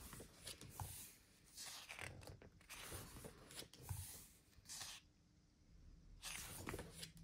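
Faint rustling of photobook pages as a page is turned and the spread smoothed flat by hand. The rustling comes in several soft brushes, with a brief silence about five seconds in.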